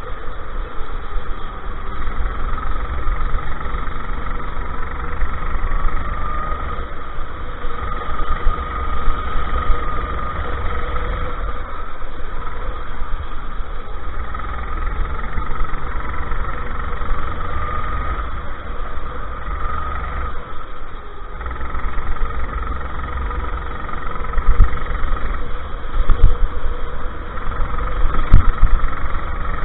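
Go-kart engine heard onboard, its pitch rising and falling every few seconds as the kart accelerates out of corners and lifts for the next, over a heavy low rumble. A few sharp knocks near the end.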